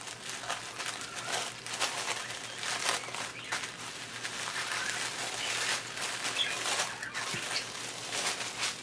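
Plastic and paper packaging crinkling in irregular crackles as it is handled and opened.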